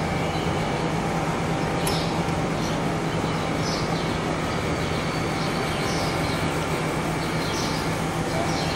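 Birds chirping in short calls, roughly one a second, over a steady low hum and hiss of city background.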